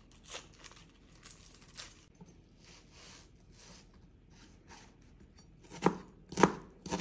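Dry onion skin crinkling and tearing faintly as it is peeled off by hand, then a chef's knife cutting through the onion and knocking on the cutting board: a few sharp strikes about half a second apart near the end.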